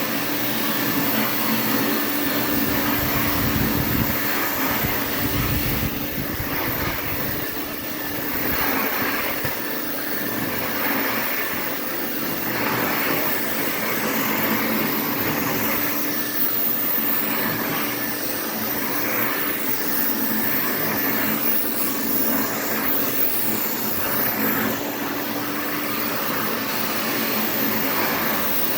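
Interstate Compact C6 vacuum cleaner running steadily while vacuuming: a constant motor hum under a rushing hiss that swells and fades every second or two, with a deeper rumble a few seconds in.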